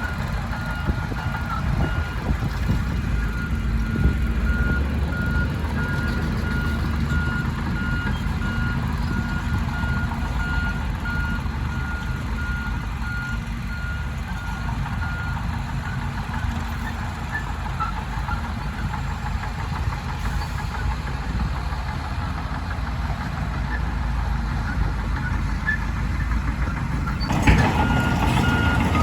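Heavy diesel earthmoving machinery running with a steady low rumble, and a reversing alarm beeping in an even series. The beeping stops about halfway through and starts again near the end, where the engine noise rises.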